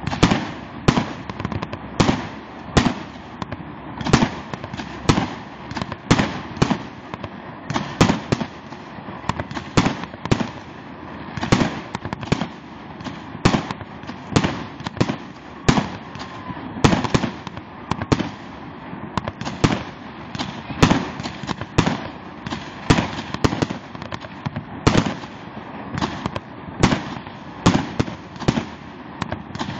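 Many fireworks going off in quick succession: aerial rockets and shells bursting with sharp bangs a few times a second, over a steady din of more distant fireworks.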